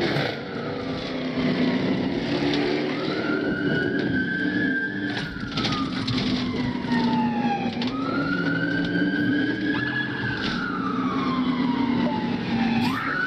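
Police cruiser siren on its wail setting, rising and falling in long sweeps of about four to five seconds each during a pursuit, over a steady low hum.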